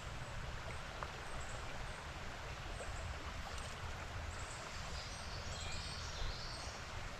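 Creek water running steadily, with a low rumble underneath and faint high bird chirps through the second half.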